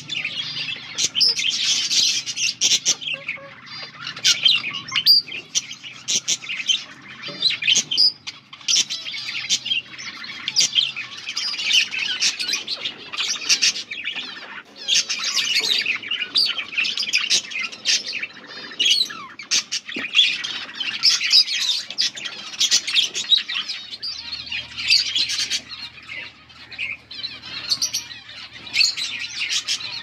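A flock of budgerigars chirping and chattering nonstop, many short calls overlapping with sharp squawks among them.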